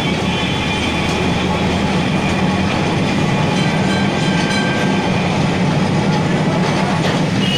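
Old Kolkata tram car running along its tracks, heard from inside the car: a loud, steady rumble of wheels on rail and rattling car body under a constant low hum.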